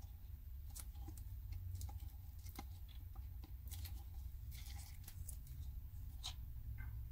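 Faint, scattered clicks and scrapes of a wooden stir stick against a plastic mixing cup as glittery epoxy resin is scraped out into a silicone mold, over a low steady hum.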